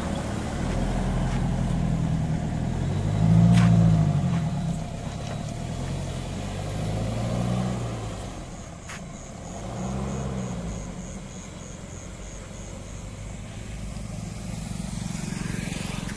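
Mahindra Scorpio SUV's engine pulling away and accelerating through the gears, rising in pitch three times, loudest about three and a half seconds in, then growing fainter as it drives off.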